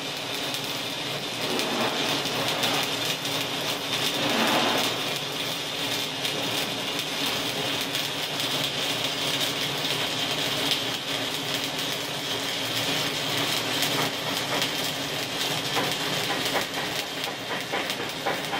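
Electric welding arc crackling and sizzling steadily while a lap joint is welded.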